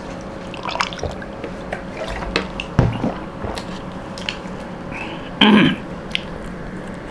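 Wet mouth sounds of people eating chicken rolls fast: scattered chewing and lip-smacking clicks, with a louder short voiced sound, such as a gulp or grunt, about five and a half seconds in.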